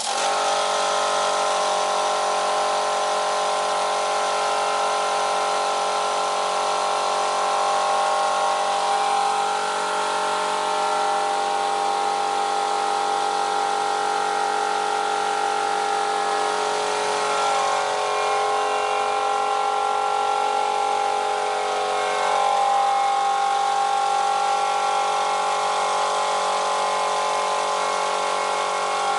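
Workshop machinery motor running steadily, a loud hum of several pitches, which wavers briefly past the middle.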